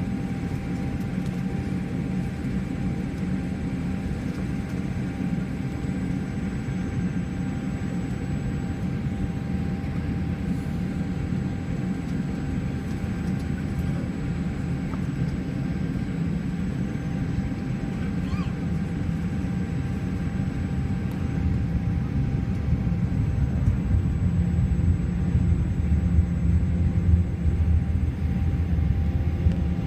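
Steady cabin noise inside a Boeing 787 Dreamliner as it taxis: the low rumble of the engines and the airframe with a steady hum. The rumble grows louder about two-thirds of the way through.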